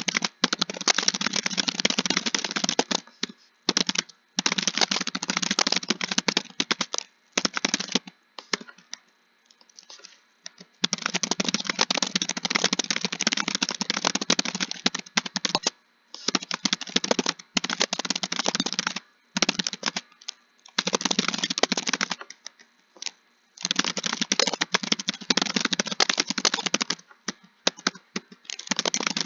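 Fast typing on a computer keyboard: dense key clicks in long runs, broken by short pauses, the longest lasting about two seconds roughly a third of the way in.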